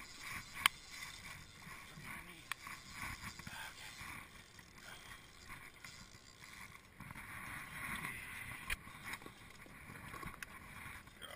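Water lapping against a plastic fishing kayak's hull, with a few sharp knocks of gear on the hull.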